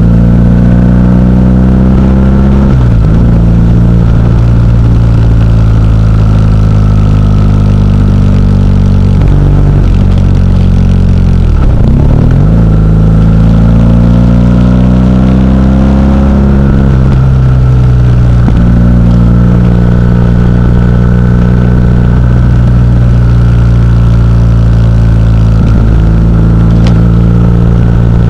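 Motorcycle engine pulling along a winding road, its note rising and falling with the throttle. The pitch drops sharply and picks up again a few times, about three seconds in, about twelve seconds in and near the end, as the rider shifts gear or rolls off.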